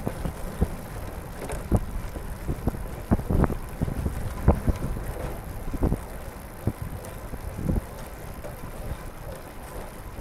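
Wind buffeting the microphone and tyre noise from a recumbent racing trike rolling on a wet paved path, with irregular short thumps scattered throughout.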